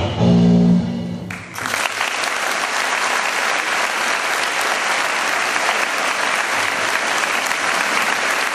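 Routine music with a steady beat ends about a second in, then an audience applauds steadily.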